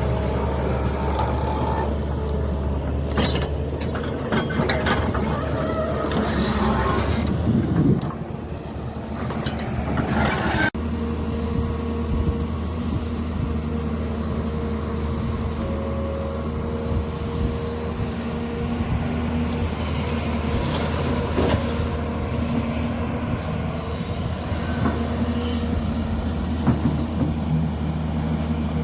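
Heavy diesel engine of a truck or earth-moving machine running steadily, with some clatter in the first few seconds and an abrupt change in the sound about eleven seconds in.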